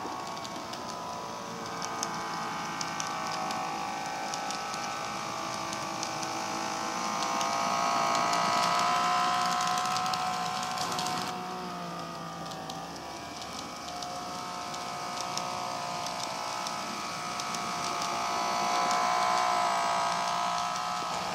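KATO N scale model electric railcar running on PWM power: a steady motor whine with several tones that drift slightly in pitch, with light ticking from the wheels on the track. It swells louder twice, around the middle and near the end.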